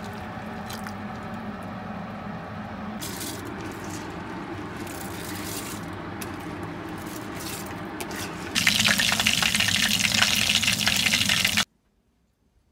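Liquid pouring into a pot of kidney beans on the stove, a steady splashing noise. About eight and a half seconds in, a louder rush like running water starts suddenly, then everything cuts off about a second before the end.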